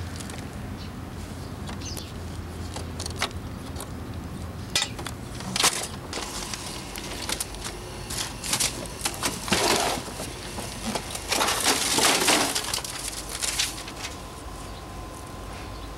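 Parts of a broken-up Canon photocopier being handled on gravel: scattered clicks and knocks, then two rougher crunching scrapes about ten and twelve seconds in.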